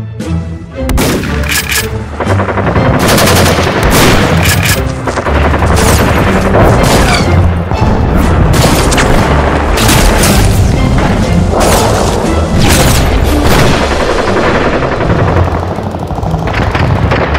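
Background action music with rapid gunfire and booming blasts laid over it, dense and loud, starting about a second in.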